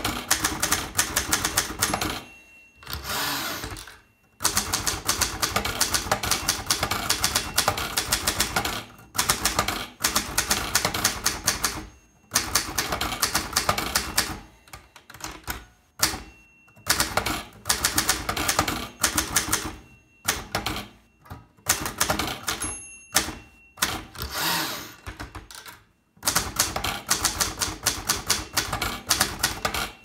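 Zbrojovka Brno Zeta manual typewriter being typed on: rapid, clattering key and typebar strikes in long runs, broken by a few short pauses.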